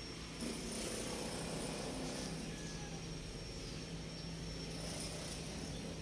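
Steady low hum of a diesel engine idling, with a constant tone and an even rumble beneath.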